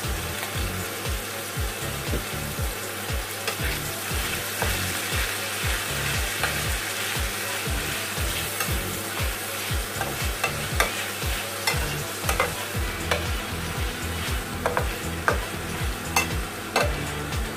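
Chicken and vegetables sizzling as they are stir-fried in a nonstick frying pan, with a spatula scraping and tapping against the pan. The taps become sharper and more frequent in the last few seconds. A low regular beat runs underneath, about twice a second.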